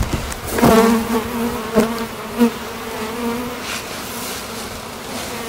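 A mass of honeybees from a freshly installed package buzzing around an open hive in a steady hum, the bees stirred up and excited. A few sharp wooden knocks in the first half as frames are set back into the hive box.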